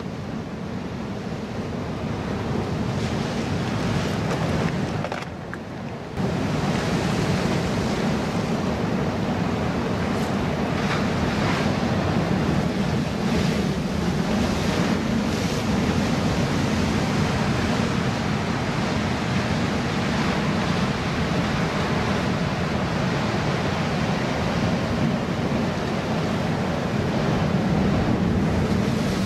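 Ocean surf breaking and washing over a rock wall, with wind buffeting the microphone. The sound drops briefly about five seconds in, then returns.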